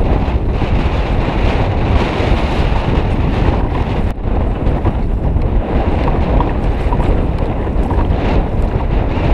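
Strong wind buffeting the microphone over choppy sea water, with waves washing and splashing around a kayak.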